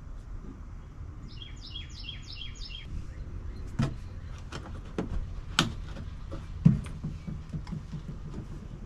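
A songbird gives a rapid run of about six chirps a second in, then a string of sharp clicks and knocks follows, the loudest about seven seconds in, over a steady low rumble.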